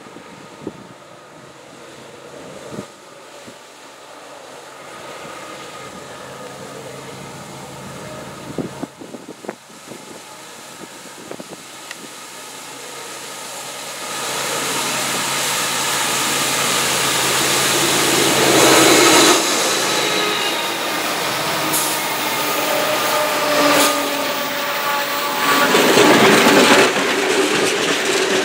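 A lashup of CN diesel freight locomotives (ES44DC, SD75I, SD60, C40-8M and two GP38-2Ws) approaching and passing close by, their engines running and wheels rolling on the rails. It grows steadily louder and is loudest in the last ten seconds as the units go past.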